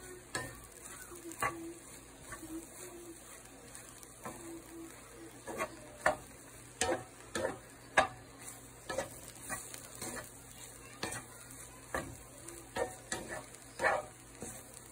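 A wooden spatula stirring and tossing diced roti pieces in a nonstick frying pan, with irregular scraping strokes over a faint sizzle.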